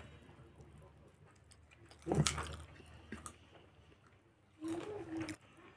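Close-up eating sounds: rice and sauced meat squelching and being chewed as it is eaten by hand. There is a loud thud about two seconds in, and a short voice sound near the end.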